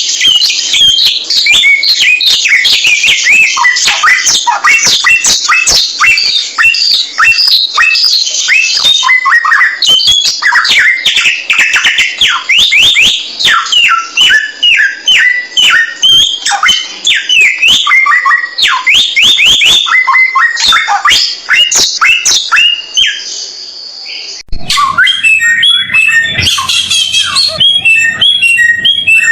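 Samyong songbird singing a fast, varied chattering song of rapid sweeping and rising notes, a masteran recording made for training other songbirds. About 24 seconds in, the song cuts abruptly to a different recording of similar song with a faint low hum underneath.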